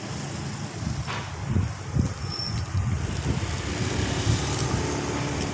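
Road traffic: cars and motorcycles passing, a steady low rumble with uneven swells and, from about halfway in, a faint steady engine hum.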